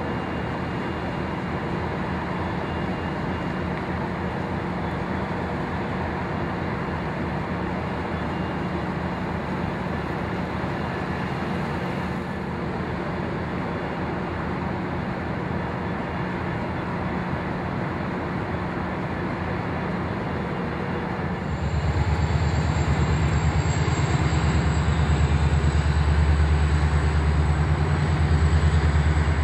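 Metrolink diesel locomotive running steadily at standstill, a low, even engine rumble. About three-quarters of the way in the sound steps up, louder and heavier in the low end, with a steady high-pitched whine joining it.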